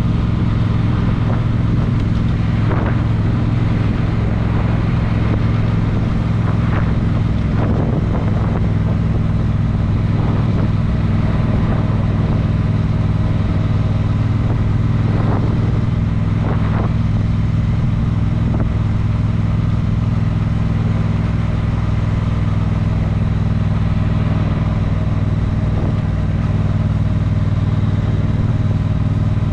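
A road vehicle's engine running at a steady speed while driving, a constant low drone of engine and road noise.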